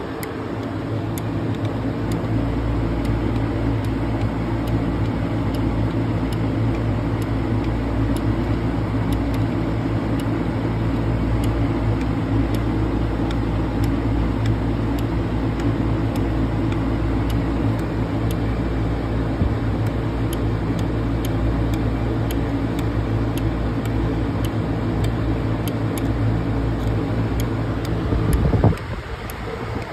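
Fluid transfer pump running with a steady hum, pumping automatic transmission fluid from the bottle through a clear tube into the transmission's dipstick tube; it cuts off with a knock near the end.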